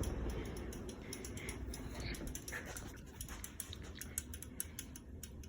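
Casablanca Four Seasons III ceiling fan spinning down after being switched off, its low whir slowly fading, with faint ticking.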